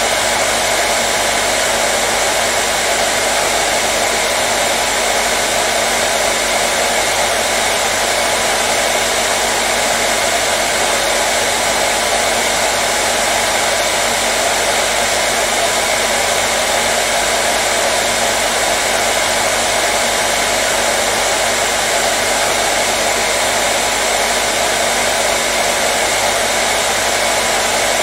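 Hair dryer running continuously at a steady speed: an even, unchanging rush of blowing air and motor noise.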